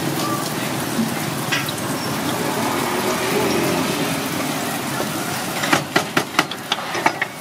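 Sesame-battered banana fritters deep-frying in a wide pan of hot oil: a steady sizzle. Near the end, a quick run of sharp clicks as metal tongs knock against the pan.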